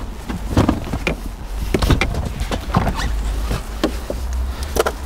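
Hand handling of a car's boot mat and organizer while it is being refitted: scattered knocks, clicks and scuffs of plastic and rubber, over a steady low rumble.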